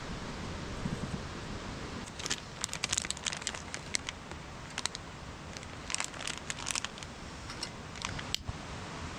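Crinkling and crackling in two short bursts, about two seconds in and again around six seconds, with a few scattered clicks after, over a steady background hiss.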